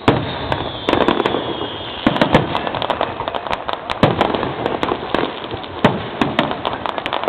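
Aerial fireworks display: shells bursting with many sharp bangs and crackles over a continuous rumble, with loud bursts about a second and two seconds in.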